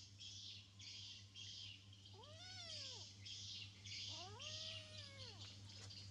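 Kitten meowing twice, each meow rising and then falling in pitch, the second one longer. A high pulsing chirp, about two pulses a second, runs behind.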